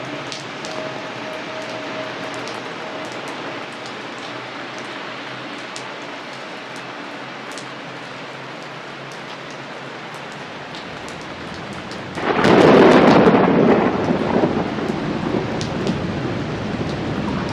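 Steady rain falling, with scattered drops ticking. About twelve seconds in, a sudden loud clap of thunder breaks in, rumbles on and fades over the next few seconds.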